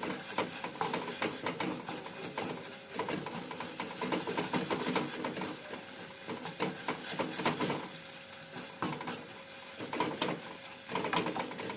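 A spatula stirring and scraping in a kadhai as ginger paste fries in melted jaggery, with a steady sizzle under many short knocks and scrapes against the pan.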